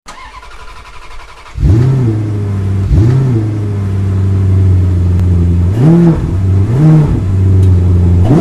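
A car engine sound effect: after a quieter lead-in, an engine catches about one and a half seconds in and idles steadily, its throttle blipped several times in short rising-and-falling revs.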